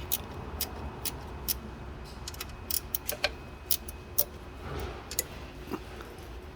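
8 mm ratcheting wrench clicking in short, uneven strokes as a bolt is turned out.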